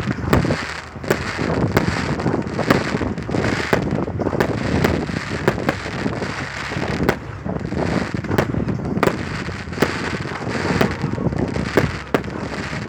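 New Year's fireworks going off without pause: many sharp, irregularly spaced bangs and crackles over a steady rumble of further explosions.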